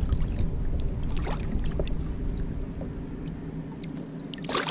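Light splashes and drips of water around a redfish held in the water beside a kayak for release, with a louder splash about four and a half seconds in.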